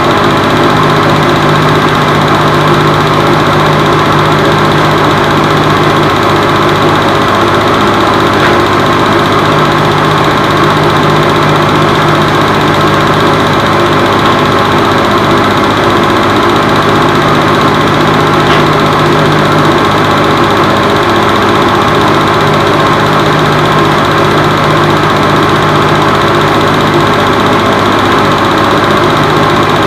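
Film projector running during the transfer of a silent home-movie reel: a steady mechanical whir and drone with a pulsing hum.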